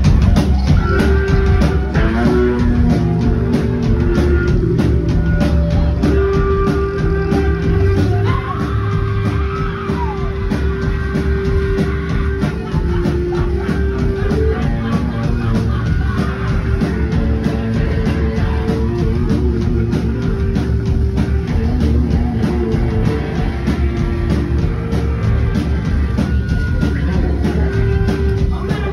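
Live rock band playing loud: electric guitar, bass guitar and drum kit together.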